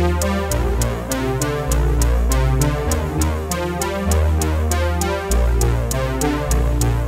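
Background electronic music with a steady beat and a synthesizer bass line.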